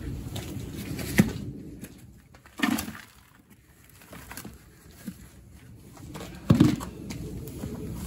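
Coarse potting mix poured into a large plastic pot over bare roots and worked in with a gloved hand: rustling of the mix, a sharp tap about a second in, and dull thumps near the middle and again near the end.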